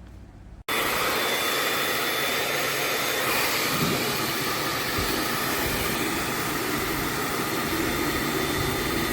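Hair dryer switched on less than a second in, its fan then blowing air with a steady loud rush.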